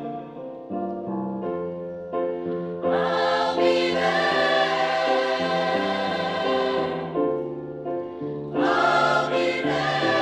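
Women's community choir singing in harmony, with several voices holding sustained notes together. It swells louder about three seconds in, eases off briefly after seven seconds, then rises again near the end.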